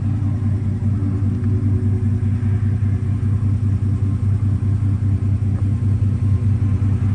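Ford F-150 pickup's engine idling: a steady low rumble with a fast, even pulse.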